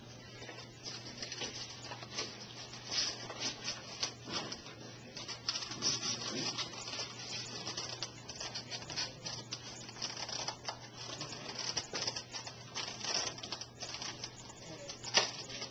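Clear plastic packaging crinkling as it is handled and unwrapped: rapid, irregular crackles, with one sharper click near the end. A steady low hum runs underneath.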